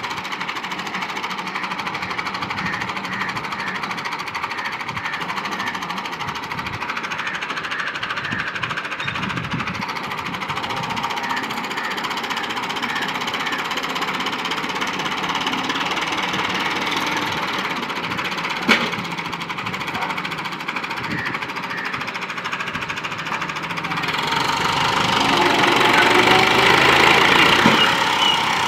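Farm tractor's diesel engine running with a knocking rhythm, then revving up and getting louder about three-quarters of the way through as it works against the load of a sand-laden trolley. A single sharp knock sounds about two-thirds of the way in.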